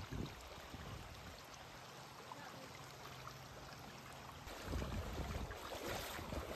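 Faint steady rush of muddy floodwater flowing. About four and a half seconds in, louder irregular splashing begins as a person wades through knee-deep floodwater.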